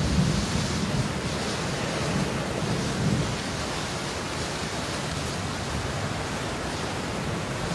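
Steady heavy rain hiss with low thunder rumbling underneath, swelling near the start and again about three seconds in.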